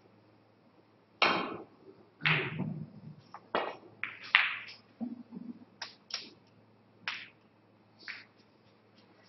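Snooker balls being played: a sharp click about a second in, then a run of about a dozen crisp ball and cushion knocks, a couple with a low thud, thinning out towards the end, as a red is potted.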